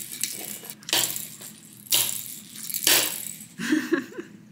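Plastic fork scraping and scooping food in an aluminium foil takeaway tray: three sharp scrapes about a second apart.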